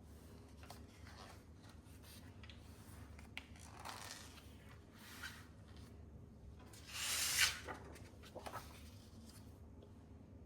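Faint rustling and handling noises, with one louder, brief rustle about seven seconds in.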